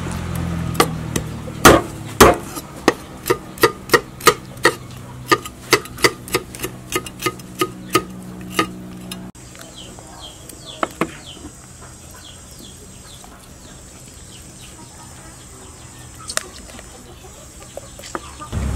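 Cleaver chopping on a wooden chopping board: a run of about twenty sharp blows, two to three a second, that stop about halfway through. Afterwards only quieter handling sounds with a few soft taps.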